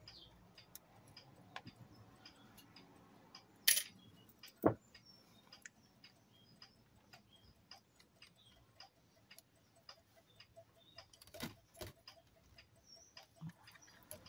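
Small clicks and knocks of metal and plastic parts as a Polaroid SX-70 camera is taken apart by hand, the loudest a sharp click about four seconds in and a knock a second later. Under it runs a steady faint ticking, a little under two ticks a second.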